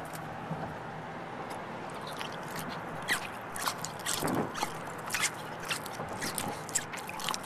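Cheese curds squeaking against the teeth as they are chewed close to the microphone: a string of irregular short squeaks and clicks, the squeak of curds at the right temperature. A steady car road hum runs beneath.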